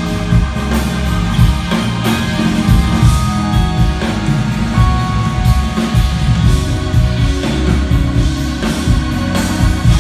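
Jazz-fusion band playing loud amplified music live: drum kit, electric guitars and keyboards together.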